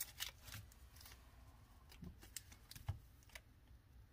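Faint rustling and light taps of Pokémon card booster packs being handled, a few scattered short clicks.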